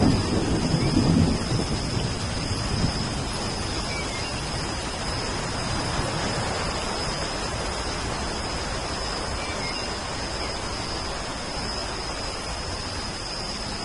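Steady rain with a low rumble of thunder in the first second or so, then just the rain.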